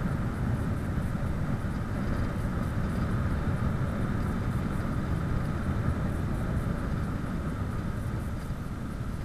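Wind buffeting the microphone of a camera on a bicycle speeding downhill, mixed with the steady rolling noise of the tyres on the road; it eases slightly near the end.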